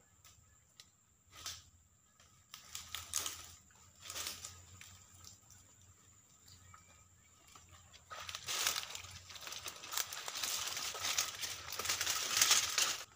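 Dry palm fronds and leaf litter crackling and rustling as someone moves through them and pushes them aside. A few scattered snaps at first, then dense, louder crackling from about eight seconds in.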